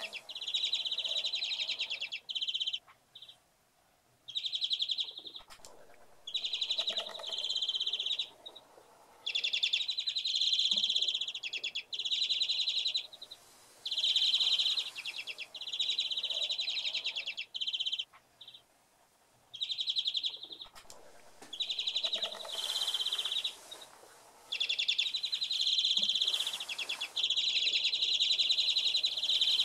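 European greenfinches twittering in rapid trills, in bursts of one to two seconds separated by short pauses, running almost without a break near the end.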